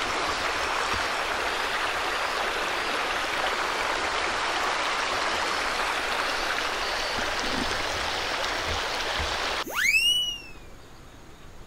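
Shallow river water rushing steadily over a stony riffle. It cuts off about ten seconds in, when a short swooping sound effect rises sharply and falls away.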